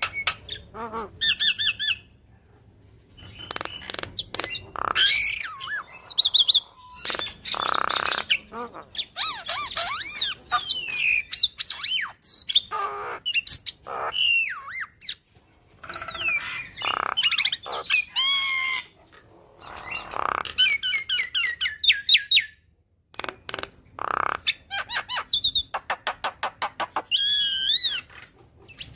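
Javan myna singing a long, varied chattering song of harsh squawks, gliding whistles and rapid runs of repeated clicks, broken by short pauses.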